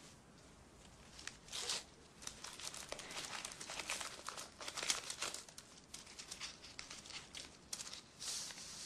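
A paper envelope being torn open and the sheet inside pulled out and unfolded, in a run of short paper crackles and rustles.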